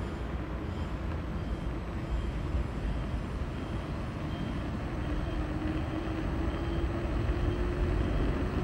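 Steady low rumble of road noise and engine from a moving vehicle, with a faint engine hum that rises slightly in the second half.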